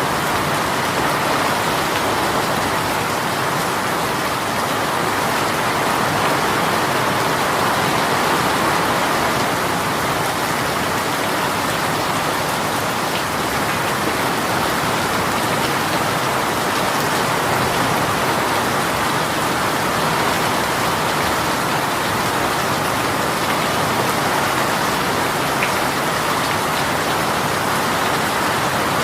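Rain shower falling steadily: an even, unbroken hiss of rain.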